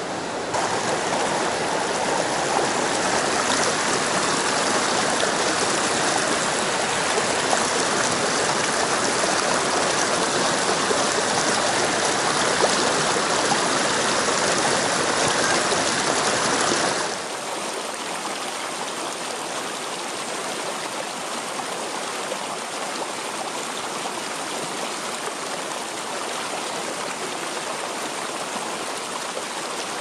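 Mountain stream rushing over rocks, a steady water noise. About half a second in it gets louder, then just past halfway it drops suddenly to a quieter, thinner rush.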